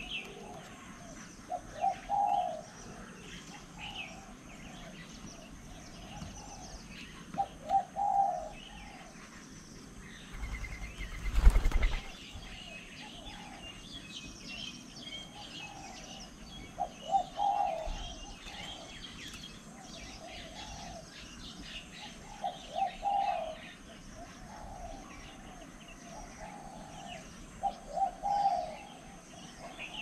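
A dove cooing in repeated phrases of a few short notes, a phrase about every five to six seconds, while small birds chirp faintly and high. About a third of the way in, a loud rush of noise lasting a second or two stands out above the rest.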